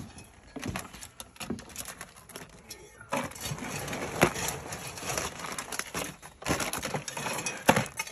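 Boiled crawfish shells clattering as a trayful is tipped into a cooler of boiled crabs. A few scattered clicks at first, then a dense rattle from about three seconds in.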